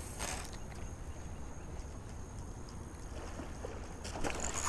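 Quiet ambience aboard a small fishing boat: a low steady rumble of wind and water with a faint steady high whine, a couple of faint clicks, and a louder rustling swish starting near the end.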